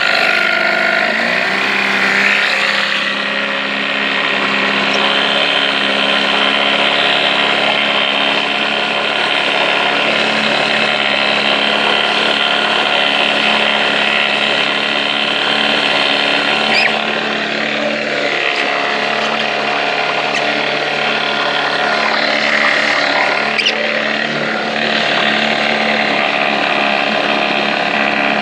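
Evinrude 4 hp two-cylinder two-stroke outboard motor running; it picks up speed about a second in, then holds a steady speed.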